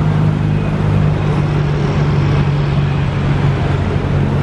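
Steady engine drone: a low hum of several steady tones with a rushing noise over it, unchanging throughout.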